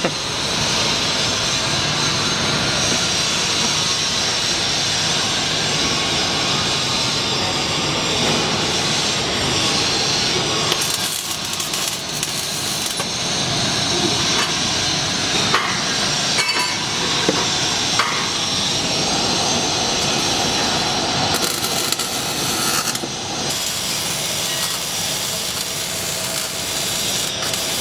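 MIG welder running a bead on scrap steel with 75/25 argon-CO2 shielding gas, wire fed at 300 inches per minute at 18.5 volts: a steady crackling sizzle from the arc, with a few short pauses.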